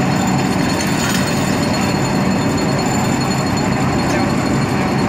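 Crane-rigged pile-installation machinery working steel kingpost piles, giving a loud, steady mechanical din without a break.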